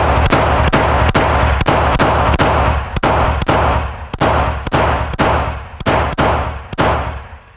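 Rapid handgun fire at an indoor range: over twenty shots at about three a second, each with a short echo, stopping about seven seconds in. The rate is faster than the one-shot-per-second limit that the range safety officer then enforces.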